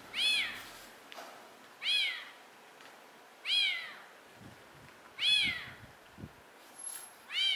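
A calico kitten meowing five times, about every second and a half, each meow rising and then falling in pitch.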